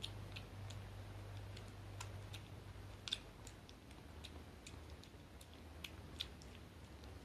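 Kitten eating wet food from a plastic bowl: faint, irregular little clicks and smacks of chewing and licking, two of them a bit sharper about three and six seconds in, over a low steady hum.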